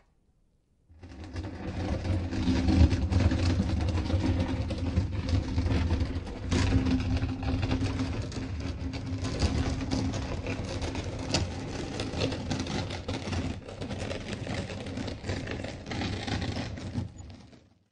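Stone grinding and rumbling: a continuous low rumble full of small clicks and cracks, starting about a second in and dying away near the end.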